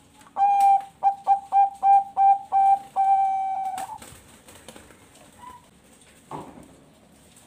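Zebra dove (Bangkok-strain perkutut) singing its cooing song: a long opening coo, a quick run of about seven short clipped coos, then one long drawn-out final coo. A couple of faint soft sounds follow.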